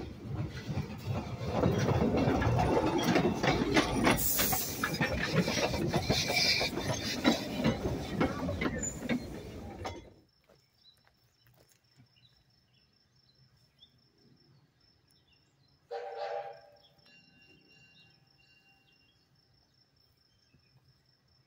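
1937 Porter 0-4-0T steam locomotive pulling away up the grade: exhaust noise with rapid wheel-and-rail clicking, loud for about ten seconds, then cut off abruptly. After that there is a faint steady insect chirring, with a short pitched tone about sixteen seconds in.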